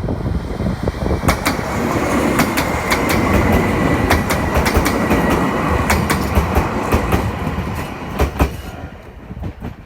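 A train passing over a level crossing on the Chichibu Railway. A loud low rumble is joined about a second in by rapid sharp clicks of wheels over rail joints and a thin, steady high whine, and the train sound fades out near the end.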